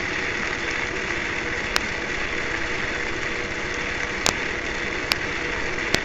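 Steady hum of a small electric motor running, with four short sharp clicks scattered through it.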